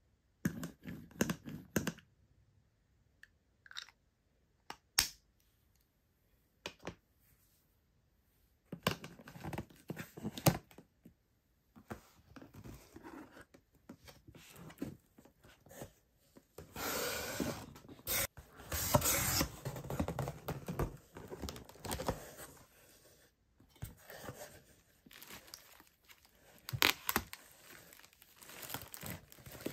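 Close-up handling of a cardboard parcel. A privacy-protection stamp is pressed over the shipping label, then the box is opened, with short clicks, cardboard and paper rustling, and a louder stretch of tearing and rustling in the middle. Plastic wrapping crinkles near the end.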